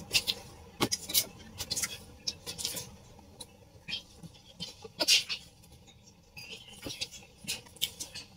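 A hand kneading and squeezing thick rice-flour and sugar batter in a stainless steel pot to smooth out the lumps, giving irregular wet squelches and slaps, the loudest about five seconds in.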